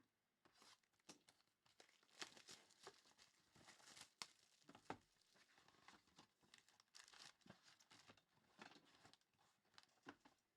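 Faint tearing and crinkling of wrappers as a trading-card box and its packs are opened by hand, with irregular crackles and a few sharp clicks.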